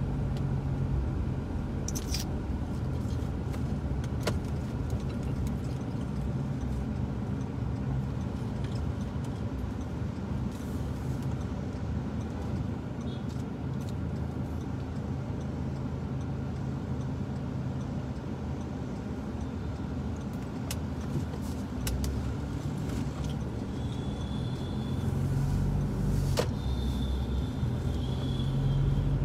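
Steady low rumble of engine and road noise inside a moving car's cabin, with a few scattered clicks and some short high-pitched tones near the end.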